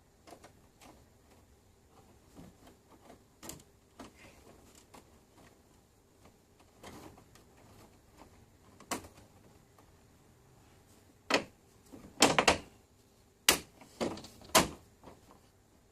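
Intermittent clicks and knocks of objects being handled, faint at first, then a quick run of sharper, louder knocks in the last few seconds.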